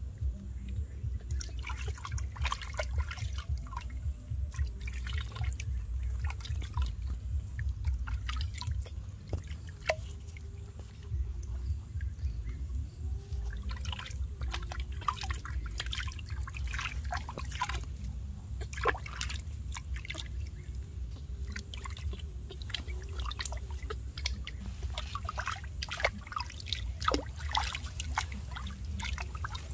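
Water splashing and dripping in irregular small strokes as a hand scoops water over a baby monkey, bathing it. A steady low rumble runs underneath.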